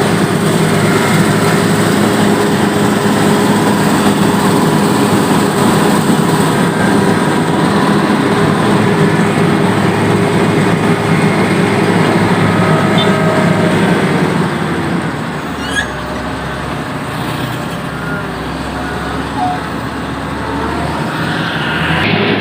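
Engine of heavy road-working machinery running steadily as the road surface is scraped, easing off to a lower level about two-thirds of the way through.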